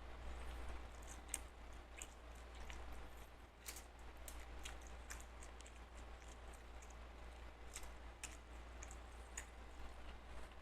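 Close-up eating sounds: soft chewing of rice and chicken with scattered wet mouth clicks, over a steady low hum.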